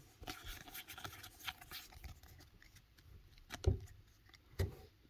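Pokémon trading cards being handled and slid through by hand: soft rustling and sliding, busiest in the first two seconds, with two light taps later on.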